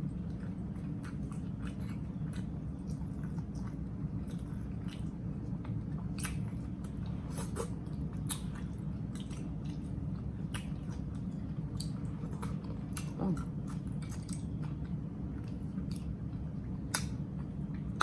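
Close-up chewing of a chopped grinder sandwich, with scattered wet mouth clicks over a steady low hum.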